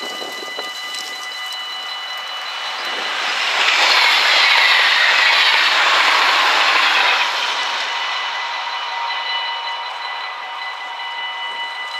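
NS ICMm electric intercity train passing a level crossing at speed; its rush swells from about three seconds in, is loudest for a few seconds and drops off sharply near seven seconds. Underneath, the crossing's warning bells ring steadily throughout.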